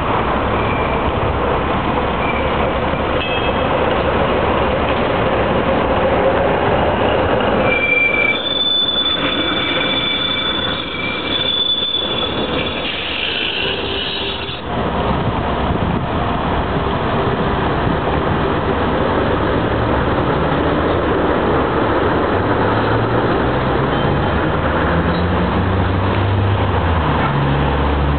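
A TTC ALRV articulated streetcar pulling away. Its steel wheels squeal on the curving track for several seconds about a third of the way in, a high steady two-note squeal over the running noise. In the later part, road vehicles pass, their engines rising in pitch as they accelerate.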